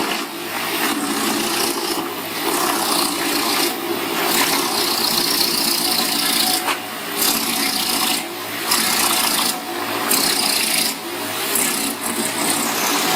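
Large wood chipper running and shredding wood: a loud, dense grinding noise with brief dips every second or two.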